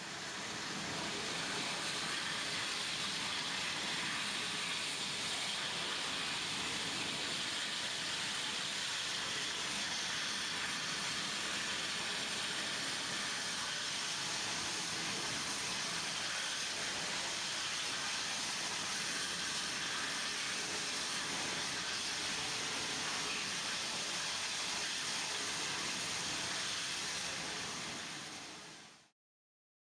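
Gas-fired engine fire on an aircraft fire-training prop burning with a steady rushing hiss of gas-fed flame. It fades in at the start and fades out near the end.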